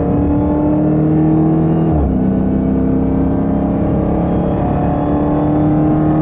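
Dodge Charger SRT Hellcat Redeye's supercharged 6.2-litre V8 pulling hard under acceleration, its pitch climbing steadily. About two seconds in it drops with an upshift, then climbs again.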